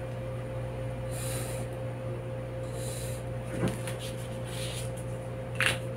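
Felt-tip marker drawn along a ruler on pattern paper: two short, soft scratchy strokes about one and three seconds in, over a steady low electrical hum.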